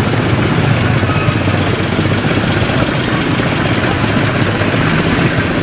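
Vehicle engines running in a steady low drone under a constant hiss.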